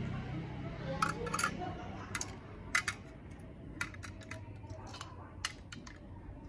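Steel kitchen knives clicking and clinking against one another as they are handled and gathered into a stack, in a dozen or so sharp, irregular clicks.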